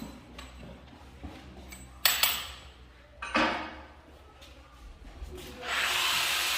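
Scattered light clicks and two sharp clinks of hard objects, each with a short ring, then a steady motor whirr that starts up near the end.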